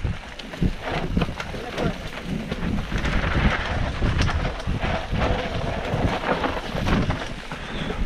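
Wind buffeting an action camera's microphone on a mountain bike riding fast downhill, over the crunch of tyres on a dry dirt trail and the steady clatter and knocking of the bike over bumps. About three seconds in, a denser hiss of tyres scrabbling through loose, dusty dirt.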